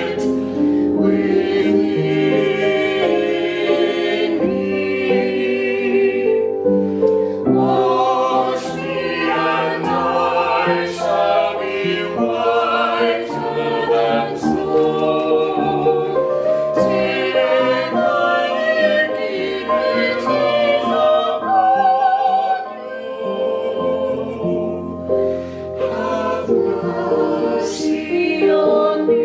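A small vocal ensemble of two men and a woman singing in parts, accompanied on an upright piano.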